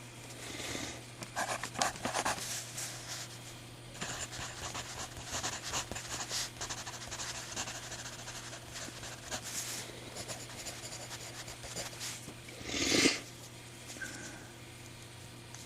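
Old Scripto mechanical pencil writing on paper: a run of short scratchy strokes, with .9 mm lead. About thirteen seconds in there is one louder, brief rushing noise.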